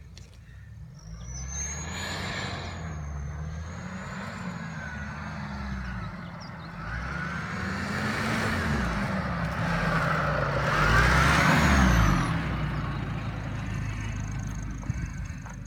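Dodge Nitro 4x4 climbing a soft sandy hill track, its engine revving up and down under load as the tyres churn through the sand. It grows louder as it approaches and is loudest about eleven seconds in.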